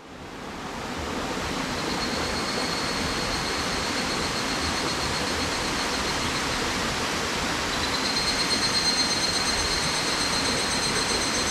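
Steady rushing outdoor ambience like a mountain stream, with a high, thin insect trill that comes in a couple of seconds in and grows louder and pulsing from about eight seconds in.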